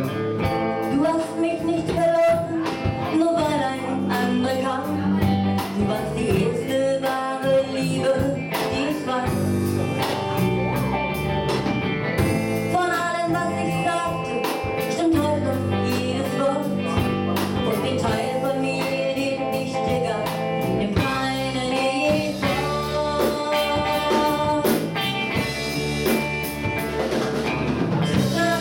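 Live rock band: a woman singing lead over electric guitar, bass guitar and a drum kit.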